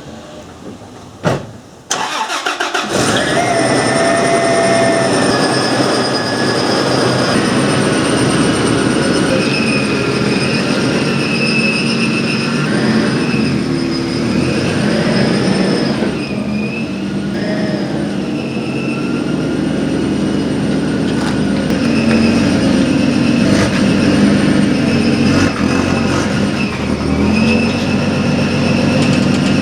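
Toyota 80 Series Land Cruiser engine starting. A few clicks come first, then the engine catches about two seconds in and keeps running, its pitch shifting now and then.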